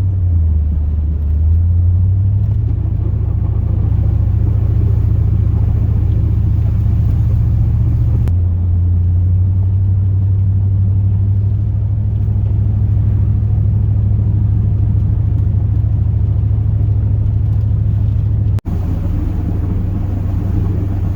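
2002 Chevrolet Silverado's 8.1-litre big-block V8 heard as a steady low drone from inside the cab while driving. Its pitch steps up about two seconds in and drops again about eight seconds in. The sound cuts out for an instant near the end.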